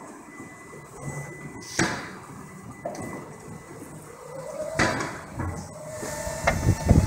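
A Mitsubishi forklift's hydraulic rotator and clamp attachment working a wheeled bin. Two sharp metal clunks come about 2 and 5 seconds in, and a hydraulic whine rises and then holds steady. Heavier knocks follow near the end.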